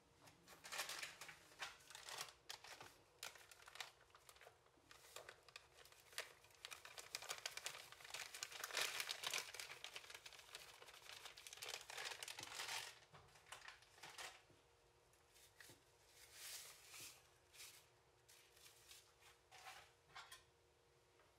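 Plastic bag of dry cake mix crinkling and rustling as it is handled and emptied into a bowl, busiest in the middle, then only scattered crinkles near the end.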